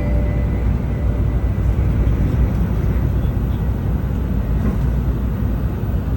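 Steady running noise inside a Tokaido Shinkansen car: a deep rumble under a rushing hiss, with the last note of the on-board chime dying away at the very start.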